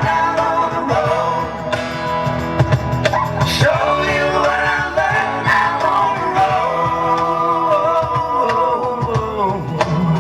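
Live rock music: a male singer holding long, gliding notes over amplified guitar and band.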